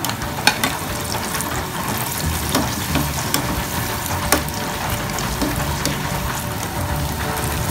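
Battered tofu cubes deep-frying in hot oil: a steady sizzle, with a few sharp clicks as a wire skimmer stirs them in the pot.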